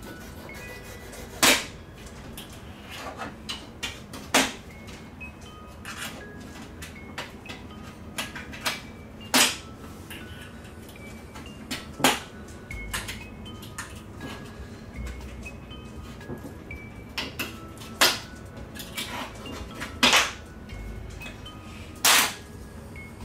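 Irregular sharp clicks and snaps, about seven loud ones and many smaller ones, as hands handle the LED backlight strips on a TV's metal back panel.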